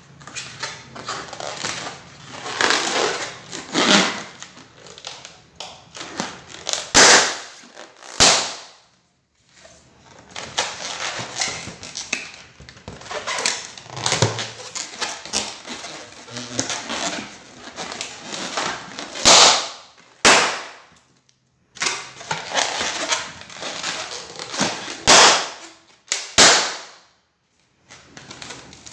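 Balloons popping: a series of sharp pops, several of them coming in pairs about a second apart, with stretches of rough, noisy sound between them.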